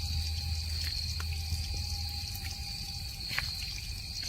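Steady chorus of night insects, a high crickets' trill, over a low hum that stops about two seconds in, with a few faint clicks.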